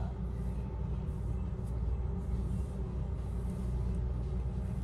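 Steady low rumble, even throughout, with no distinct events on top of it.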